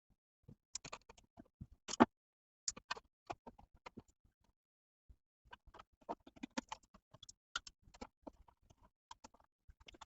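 Irregular small clicks, taps and knocks of hand work on fire alarm panel wiring and parts, with a pause of about a second and a half around the middle.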